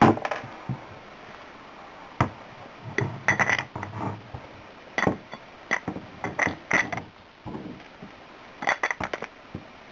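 A series of sharp metallic clinks and knocks as D-cell batteries are handled and slid into a Maglite's aluminum barrel.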